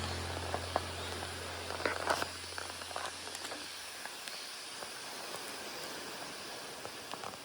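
A low musical note fading away over the first few seconds, over steady hiss with scattered small clicks and rustles.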